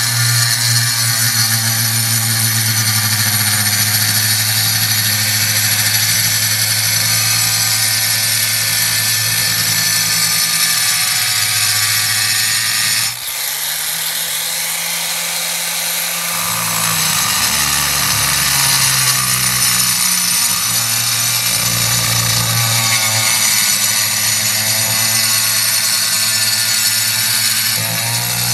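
Angle grinder with a diamond blade cutting fibre-cement (Hardie) concrete board: a loud, steady motor whine with a hiss from the blade. About 13 seconds in the pitch briefly shifts, then it settles back into the cut.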